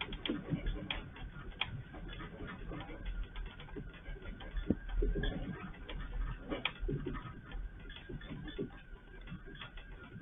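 Rapid, irregular clicking and light rattling over a low rumble, heard through a security camera's microphone.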